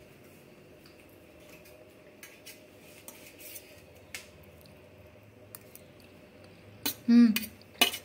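Spoon or fork clinking lightly against a steel plate of pasta as it is served up for tasting, a few small clicks at first and louder clinks about seven seconds in, along with a brief hum-like voice. A faint steady hum lies underneath.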